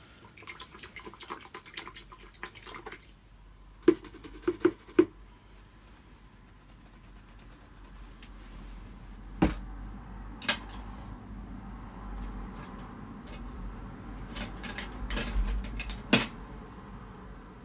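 Artist's brushes and tools being handled. First a scratchy rustle, then four quick light clinks with a brief ringing, and later a few separate sharp knocks as brushes are put down and picked up.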